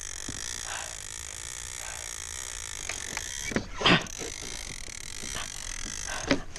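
Shimano Talica 12II lever-drag reel's drag buzzing steadily as a hooked common skate takes line against it, with a couple of brief louder knocks about two-thirds of the way in and near the end.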